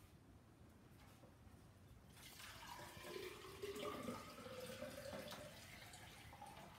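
Water poured from a watering-can-style pitcher into a tall, narrow vase. It starts about two seconds in as a steady trickling pour, and its tone rises slowly as the vase fills.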